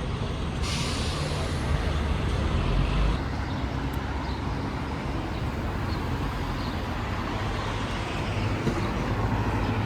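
Steady low rumble of road traffic or a moving vehicle, with a hiss over it from about a second in to about three seconds in.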